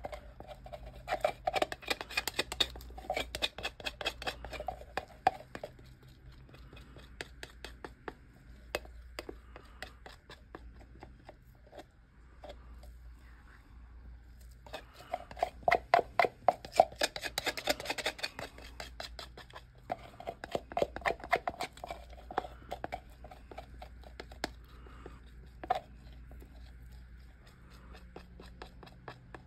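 A stir stick scraping and clicking against a plastic mixing cup and a silicone mold as resin is worked out of the cup. The sound comes in two spells of rapid clicks, one at the start and one about fifteen seconds in, with scattered ticks between.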